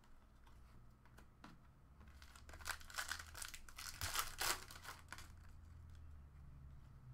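A foil trading-card pack wrapper being torn open and crinkled, a few seconds of crackly rustling that peaks about halfway through.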